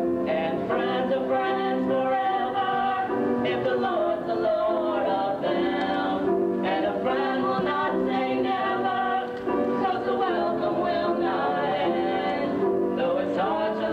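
A young man and a young woman singing a song together at a microphone, over sustained musical accompaniment, with no pauses.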